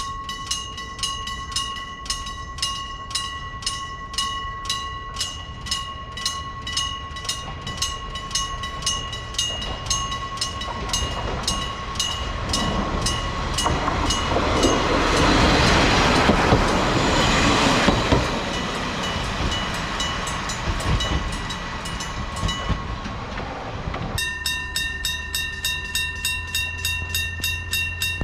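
Electric level-crossing bell ringing in slow, even strokes while a KiHa 40 diesel railcar passes over the crossing, its engine and wheels swelling loud in the middle and then fading. Near the end a second crossing's electric bell takes over, striking faster at a different pitch.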